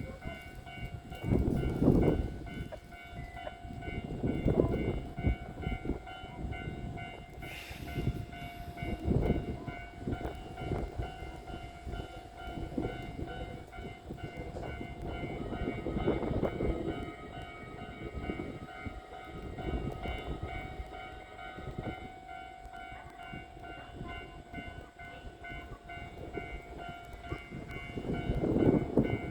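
Electric train moving through a station, with a steady mechanical whine of several tones over irregular low rumbles from the wheels on the track.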